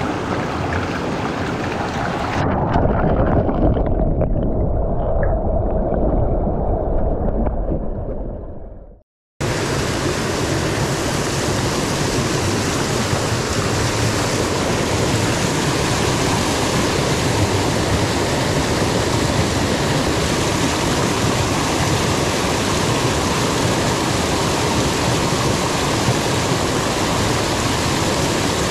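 Stream water rushing as a steady hiss of noise. For several seconds near the start it sounds muffled, with only the low part coming through; after a short dropout about nine seconds in, it returns full and even.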